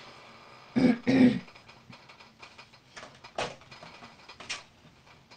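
A short two-part vocal sound from a person, like a throat-clear, about a second in. It is followed by faint scattered taps and rustles of small crafting items being handled on a desk.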